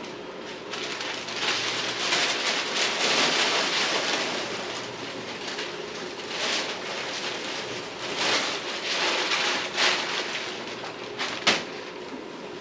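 Masking paper and tape being pulled off a freshly painted truck cab and crumpled: rustling, crinkling swishes that come and go, with a sharp snap near the end, over a faint steady hum.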